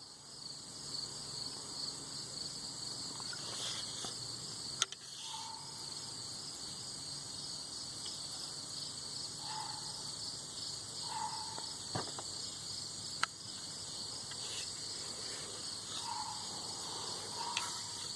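Insects chirping in a steady, rapidly pulsing drone, with a few sharp clicks over it.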